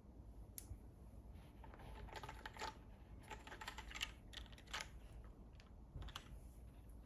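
Ovinnik TKL mechanical keyboard with MX Purple switches in a full aluminium plate and DCS keycaps being typed on. Short, uneven runs of keystroke clicks come with brief pauses between them, and they are thickest in the middle.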